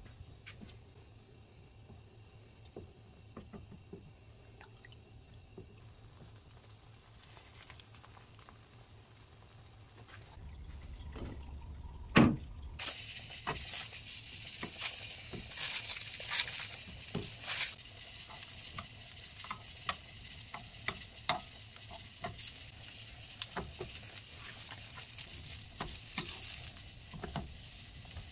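Kitchen cooking sounds: a few light clicks of handling, a single loud knock about twelve seconds in, then food sizzling in a pan with a steady hiss and scattered crackles and utensil clicks.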